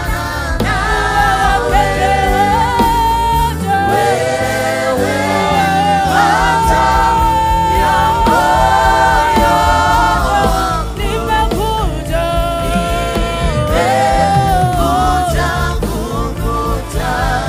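Live gospel worship song: male and female singers singing into microphones, in parts, over a steady instrumental backing.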